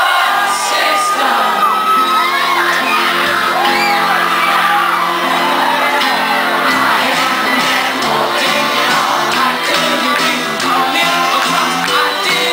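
Live rock band playing in a large hall with a singer's voice, heard through a handheld recording, with the crowd whooping and cheering over it; the band's sustained low notes come in about half a second in.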